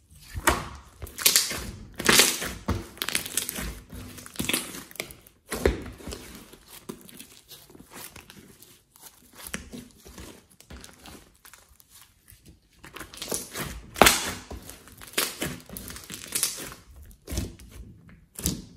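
Hands squeezing, folding and poking a large glossy slime, giving irregular wet squelches and clusters of crackling pops as trapped air is pressed out.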